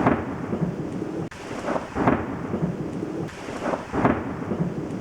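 Thunder rumbling over steady rain, swelling louder about every two seconds.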